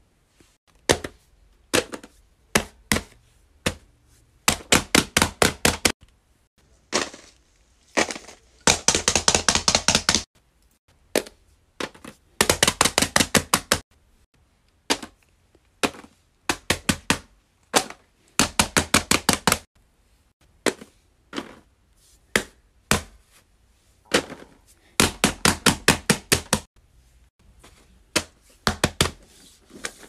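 Runs of rapid, sharp tapping clicks, several a second, each run lasting a second or two with short gaps between.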